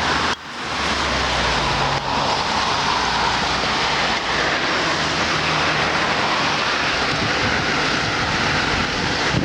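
Steady rushing wind and road noise of a car driving along a city street, after a couple of clicks at the very start.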